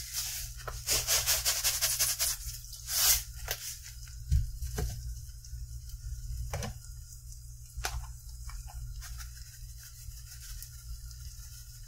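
Salt and pepper being dispensed over eggs in a pan: a quick run of gritty rasps for the first two and a half seconds, then a few scattered clicks and knocks, over a steady low hum.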